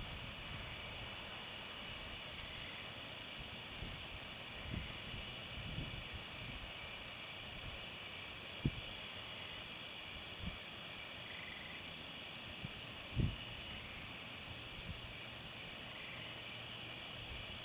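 A steady night chorus of insects such as crickets, many overlapping high chirring tones going on without a break. A couple of brief low thumps stand out, about halfway through and again a few seconds later.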